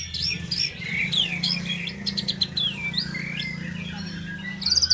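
Young white-rumped shama (murai batu) singing a varied run of whistled notes and slurred chirps, ending in a fast rattling trill, over a steady low hum.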